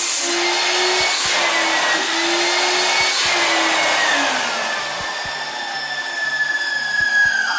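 1988 Numatic WVD 750 twin-motor industrial vacuum running on its two 800 W motors, a steady rushing whine with high tones that waver. About four seconds in, the whine starts to fall in pitch as the motors spin down. The owner reckons the motor bearings are a bit dry. Chiptune music fades in near the end.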